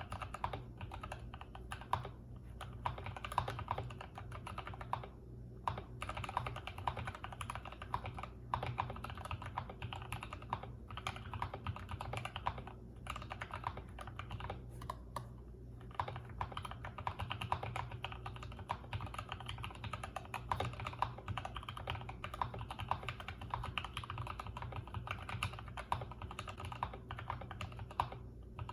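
Typing on a Durgod Hades 68 mechanical keyboard with Gateron Yellow linear switches: a fast, continuous run of keystrokes with a few brief pauses, over a faint steady low hum.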